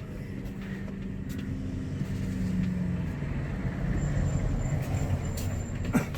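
Road traffic: a vehicle engine running with a steady low rumble. A single sharp click sounds near the end.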